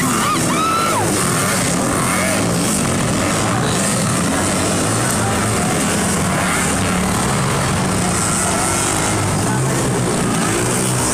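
Several dirt bike engines running and revving on a motocross track, their pitch rising and falling as the riders throttle up and back off.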